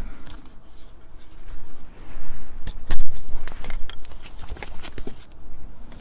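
Scattered clicks, taps and light scrapes of small hard objects being handled, starting about two seconds in and loudest a little after.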